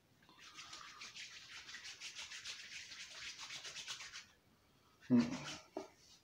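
Palms rubbing briskly together to spread a few drops of beard oil, a quick rhythmic swishing of about six strokes a second that stops about four seconds in.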